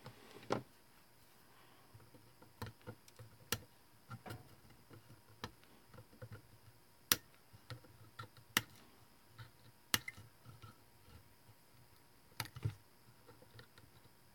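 Flush cutters snipping the soldered component leads on a circuit board: about ten sharp snaps at uneven intervals.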